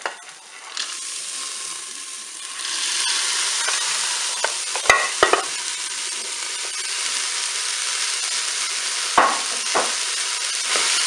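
Frozen peas tipped into a Cookeo multicooker's hot bowl of olive oil and browning onions, sizzling as they hit the oil. The sizzle builds about a second in and grows stronger from nearly three seconds in. A few sharp knocks come around five seconds in and again near nine seconds.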